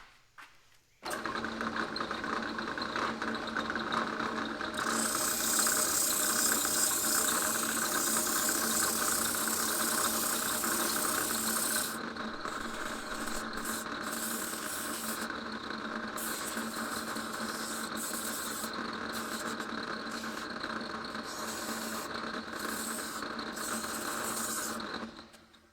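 An electric grinding or sanding tool, with a steady motor hum, working on a steel chisel. The grinding hiss is heaviest for several seconds, then comes and goes in short spells as the metal is pressed on and lifted off. The tool starts about a second in and stops just before the end.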